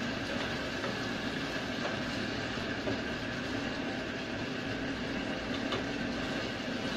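Ground pork and eggplant sizzling in a stainless steel pot over a gas burner while being stirred with a spatula, which scrapes and knocks against the pot now and then.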